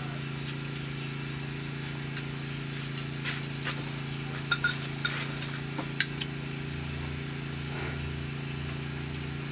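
Several light clinks and taps of eating utensils against a bowl as noodles are eaten, clustered between about three and six and a half seconds in, over a steady low hum.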